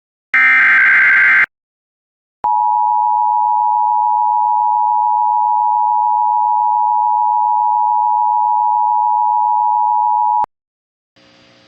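Emergency Alert System tones. A brief harsh electronic screech of SAME header data comes first, then after a pause the steady two-tone EAS attention signal sounds for about eight seconds and cuts off sharply, announcing a new warning.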